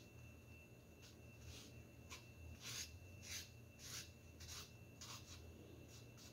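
Faint, soft scraping strokes of a metal spatula spreading and smoothing whipped cream on the side of a cake, about two strokes a second, over a low steady hum.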